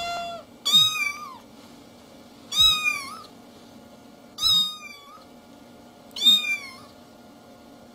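Domestic cat meowing: a held note ends just at the start, then four short meows follow about two seconds apart, each rising and falling in pitch.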